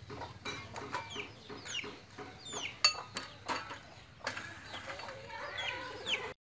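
Chickens clucking, with many short, high calls that fall in pitch. A sharp knock comes about three seconds in, and the sound cuts off just before the end.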